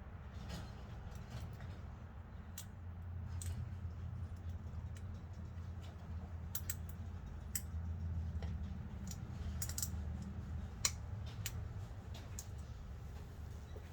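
Irregular light clicks and taps of hand tools and small brake parts being handled during a brake-pad change, over a steady low rumble. One sharper tap comes about eleven seconds in.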